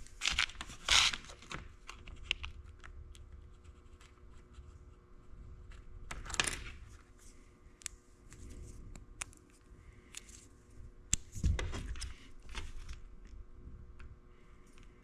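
Short bursts of tearing and crinkling with scattered small clicks, from hands working on a wiring harness's protective sheath. The louder bursts come three times: at the start, about six seconds in, and about eleven seconds in.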